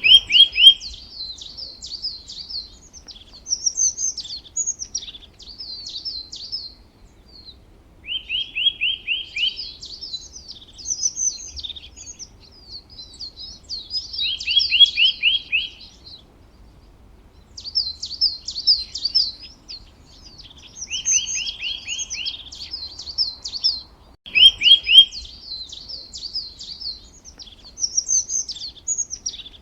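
Songbird singing in repeated phrases. Each phrase opens with a fast run of about ten clear notes and goes on into high, rapid twittering, with short pauses of a second or so between phrases.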